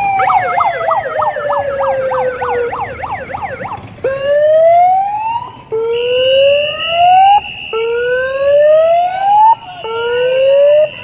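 Emergency vehicle sirens: a long falling wail under a fast warbling yelp, then about four rising whoops that each cut off abruptly, with a steady high tone joining about six seconds in.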